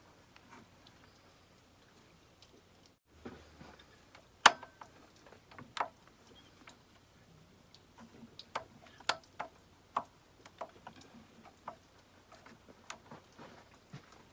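Scattered light clicks and knocks, the loudest about four and a half seconds in, from an N14 engine's vacuum pump being pushed onto the cylinder head and worked by hand to engage its drive with the grooves in the camshaft.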